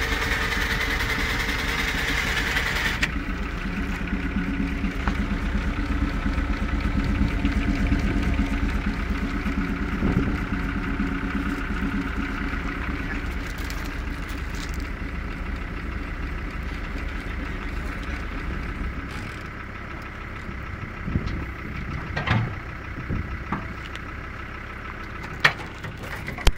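Samson slurry tanker's PTO-driven vacuum pump and the engine powering it running steadily. A hiss stops about three seconds in, the low hum drops away around nineteen seconds, and a few short knocks come near the end.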